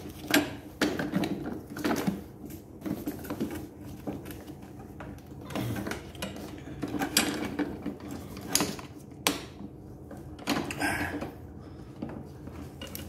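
Irregular clicks, knocks and rattles of plastic and metal parts as a Greenworks lawn mower's handle is worked into its mount on the plastic deck during assembly.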